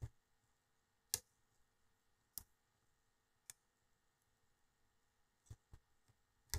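Small flush wire cutters snipping plastic connectors off a drone flight controller: about seven sharp clicks at uneven intervals, the loudest about a second in.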